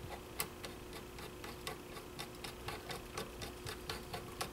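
Faint, quick, even clicks, about four a second, as a screwdriver turns the large stock screw into a Marlin Model 60 .22 rifle's wooden stock.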